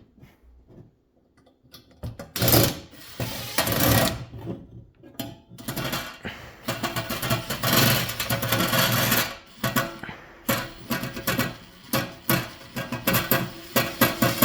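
Hand tools working screws and nuts on a box fan's metal blade hub: irregular metal clicks, scrapes and rattles that start about two seconds in and keep going.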